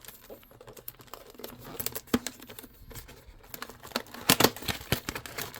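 Packaging being handled: crinkling and rustling with many small clicks and taps, the loudest a quick cluster of sharp clicks about four seconds in.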